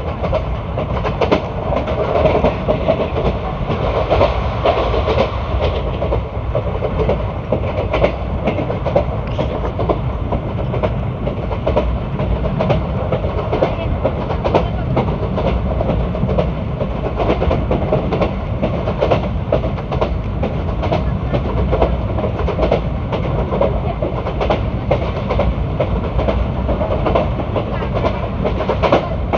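ICF passenger coach running along the track: a steady rumble with the wheels clattering over rail joints in a dense run of clicks.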